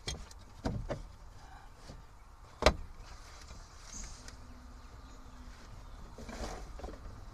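Things being shifted around by a gloved hand in a truck's cargo area: a few dull knocks and clunks, with one sharp, loud knock about two and a half seconds in and some scuffling near the end.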